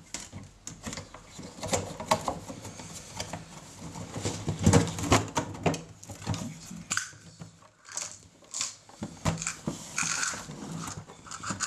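Metal chassis and cover of a Tascam mixing console being handled: lifted, tilted up and set down again, with irregular knocks, scrapes and rattles, loudest about five seconds in.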